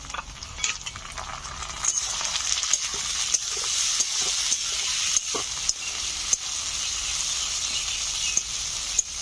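Chopped tomatoes sizzling in hot mustard oil in a metal kadai with fried onions and chillies. The sizzle grows louder about two seconds in, with the clicks and scrapes of a metal spatula stirring them against the pan.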